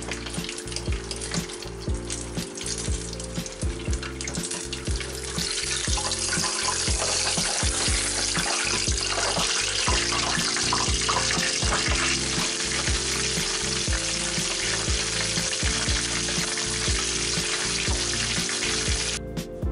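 Battered chicken pieces sizzling and crackling as they deep-fry in a pot of hot oil. The sizzle gets much louder about five seconds in and cuts off suddenly just before the end. Background music with a steady beat plays underneath.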